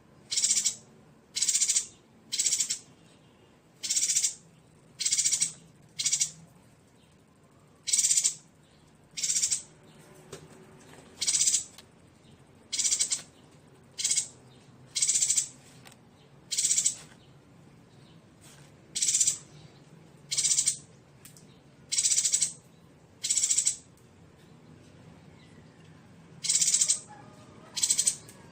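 Yuhina calling: a string of short, high, harsh calls repeated at irregular intervals about every second or so.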